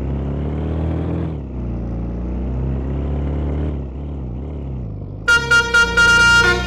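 A bus engine running, then about five seconds in a multi-tone 'telolet' bus horn sounds: four quick blasts and then a held chord, the loudest sound here.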